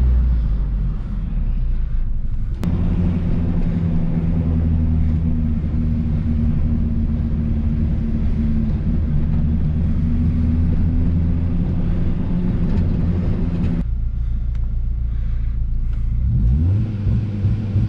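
Turbocharged Honda B18B1 four-cylinder in an Acura Integra running steadily under way, heard from inside the cabin. About fourteen seconds in it drops to a quieter idle, and near the end it revs up with the pitch rising.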